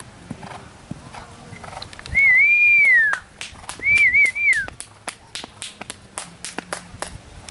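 Two loud, wavering whistles from a person close to the microphone, each ending on a falling note. They are followed by a few seconds of quick, sharp hand claps, cheering a finished round.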